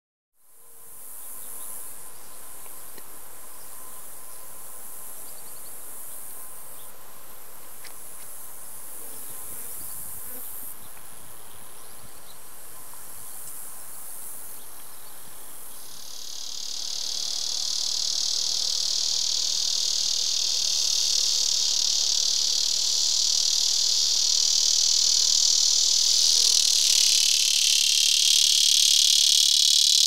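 Prairie cicada (Tibicen dorsatus) singing: a loud, steady, high buzz that comes in about halfway through, swells, and grows louder and fuller near the end. Beneath it a fainter, very high steady hiss of other insects.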